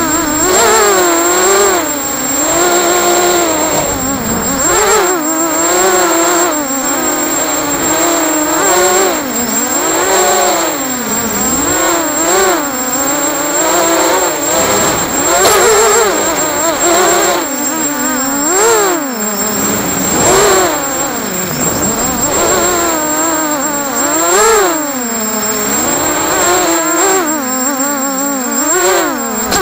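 Brushless motors and propellers of a ZMR 250 racing quadcopter, heard from its onboard camera, whining in flight. The pitch rises and falls quickly and constantly as the throttle changes. Near the end the pitch drops as the motors spool down.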